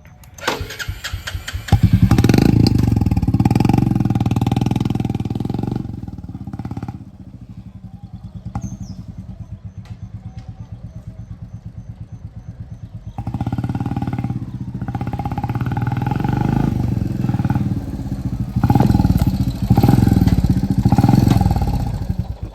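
2024 Royal Enfield Classic 350's single-cylinder engine breathing through an aftermarket HKK Indori silencer, starting up and then revved. Throttle is held open for a few seconds, it drops back to idle, and it is revved again from about the middle to near the end.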